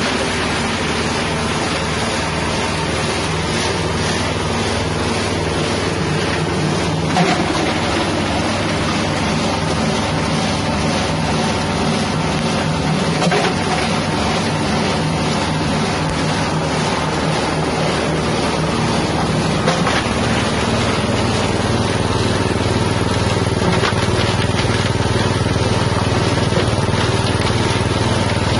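Grinding machine's 6.5 hp engine running steadily, with a few brief knocks; its low hum grows stronger about two-thirds of the way through.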